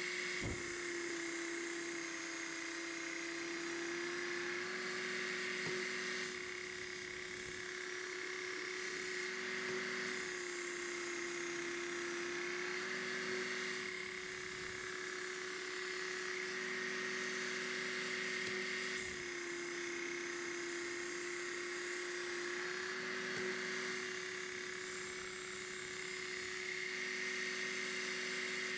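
Work Sharp Ken Onion Elite belt sharpener's motor running with a steady hum while a kitchen knife blade is drawn across its abrasive belt in repeated passes, each pass adding a grinding rasp that starts and stops every couple of seconds. This is the edge being ground to a new 20-degree bevel to raise a burr.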